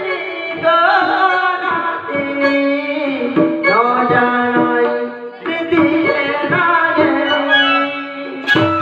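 A singer's voice, amplified through a handheld microphone and PA, sings a melodic line over hand-drum accompaniment and steady held instrumental tones.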